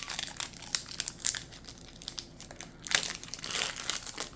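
Pokémon card booster pack's foil wrapper being torn open and crinkled by hand: a run of sharp crackles, with a denser, louder stretch of crinkling about three seconds in.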